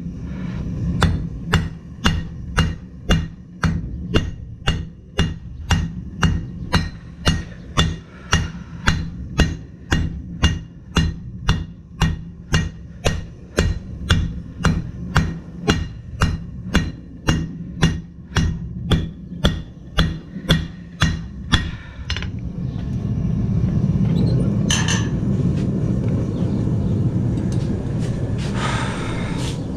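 Blacksmith's hand hammer striking hot steel on an anvil in a steady rhythm, about two blows a second. The hammering stops about 22 seconds in, leaving a steady low rumble with two short metallic clinks near the end.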